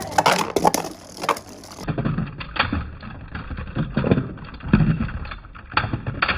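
Two Beyblade Burst spinning tops, Wizard Fafnir and Harmony Pegasus, spinning and clashing in a plastic Hypersphere Beystadium, with irregular sharp plastic clacks as they strike each other and the stadium.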